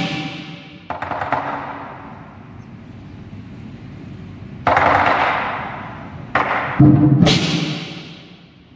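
Lion dance drum and cymbals in a pause of the rhythm, with a few single strikes. There is a light cymbal hit about a second in, then louder crashes of cymbals and drum around five and seven seconds in, each ringing and dying away.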